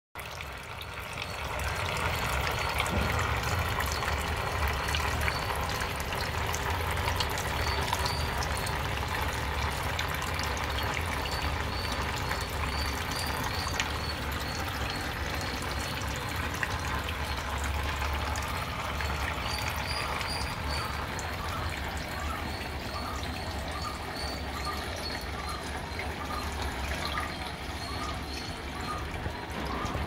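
Small homemade tabletop fountain running: water bubbling out of the top spout and trickling and splashing down into a stone-filled basin, steady throughout, with a low steady hum underneath.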